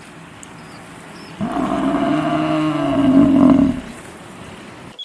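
A large animal's single long call, starting about one and a half seconds in and lasting a little over two seconds.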